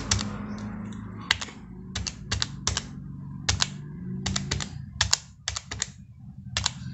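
Keys of a Casio desk calculator being pressed one after another to enter a sum: about fifteen sharp plastic clicks at an uneven pace, some coming in quick runs of two or three.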